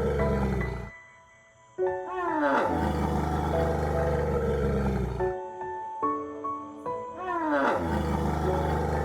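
Elephant calls over background music: a deep rumble that breaks off and returns about every five seconds, each return led in by a sweeping call that rises and falls.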